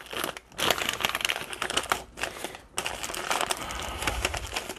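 Plastic parts bag and paper packing slip crinkling as they are handled and opened by hand, in an irregular run of crackles with short pauses about half a second and near three seconds in.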